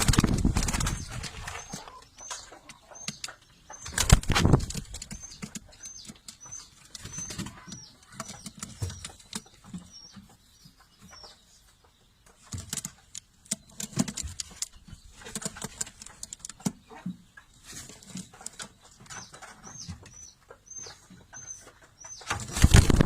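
Pigeons flapping their wings in loud bursts near the start and about four seconds in, with faint cooing, while a small bird chirps over and over in short high notes.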